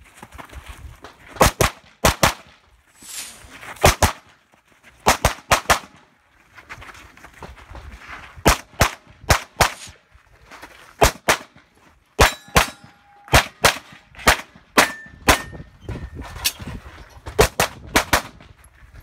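Open-division race-gun pistol firing rapid pairs of shots through a competition stage, with short pauses between strings as the shooter moves.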